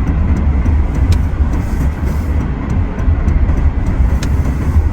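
Road noise inside a moving car: a steady low rumble of engine and tyres, with a few faint clicks.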